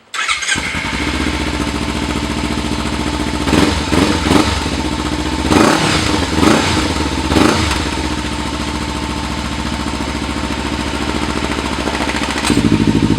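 Kawasaki Ninja 300 parallel-twin engine through an Akrapovic carbon-fibre slip-on exhaust with the baffle in: it starts, settles to idle, and is blipped about six times in quick succession before idling again. About a second before the end the idle turns suddenly louder and deeper, the baffle out, a bassy baritone from the exhaust.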